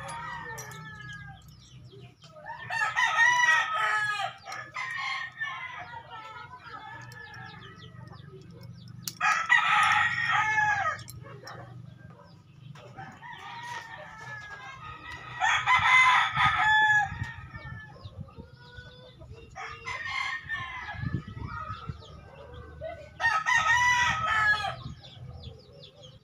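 Roosters crowing repeatedly: four loud crows of about two seconds each, some six to seven seconds apart, with fainter crows between them.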